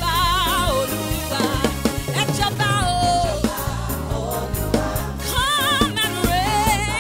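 Live gospel praise music: a woman singing lead with a wide vibrato over a band with a drum kit keeping a steady beat.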